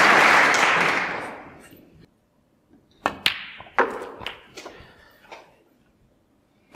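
Audience applause dying away over the first two seconds, followed after a short hush by a handful of sharp, echoing knocks and clicks.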